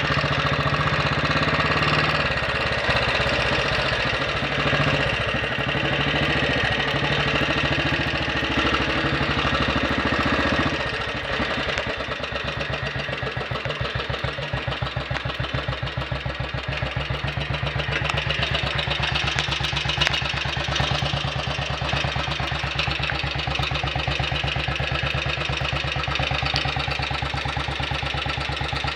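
Royal Enfield Bullet 500's single-cylinder four-stroke engine running at steady revs, then dropping to a slow, even tickover about eleven seconds in. The inlet cam is retarded one tooth and the tickover set lower, which leaves the idle slower and more steady.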